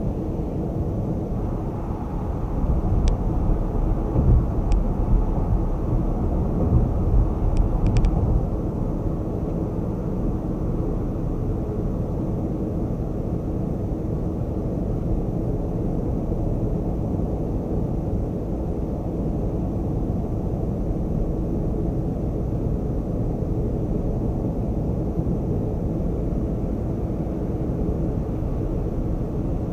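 Car travelling at highway speed: steady low road and tyre noise, with a heavier rumble between about two and eight seconds in and a few light clicks.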